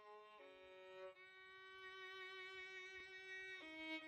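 Quiet background music: a slow melody of a few long held notes, growing gradually louder.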